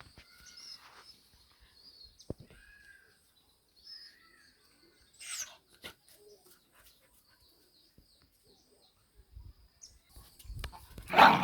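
Birds chirping faintly here and there over a steady high thin hum, then a dog barks loudly once near the end.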